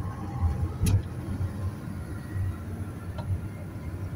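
Steady low rumble of a car's engine and tyres on the road, heard from inside the moving car, with a single sharp click about a second in.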